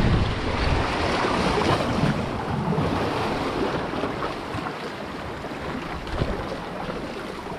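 Sea water washing against the shore, with wind buffeting the microphone. It is loudest in the first couple of seconds and then eases off.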